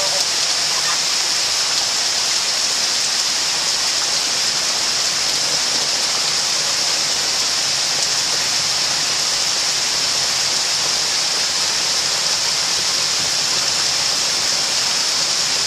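Heavy thunderstorm rain pouring down in a steady, even hiss.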